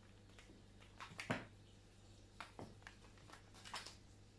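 Kittens' paws and claws scuffling and tapping on a tiled floor as they play-fight and bat at a wand toy: a few soft, irregular taps and scuffs, the loudest about a second in, over a faint steady hum.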